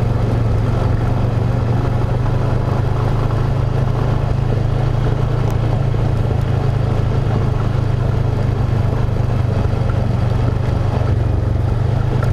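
ATV engine running at a steady speed while riding a dirt trail, a steady low drone that holds the same pitch and level throughout.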